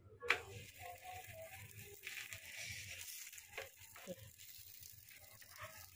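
Faint handling sounds: a sharp tap as rolled paratha dough goes onto a flat iron tawa, then soft brushing as a hand presses the dough flat on the griddle.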